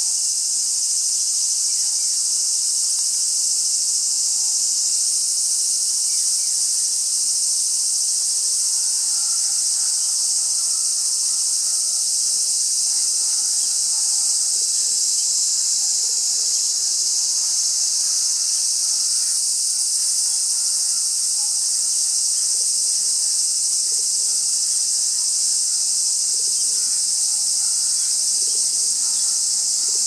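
A steady, high-pitched chorus of insects, with faint bird calls now and then.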